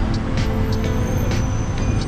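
Background music with held notes, laid over the steady noise of city street traffic.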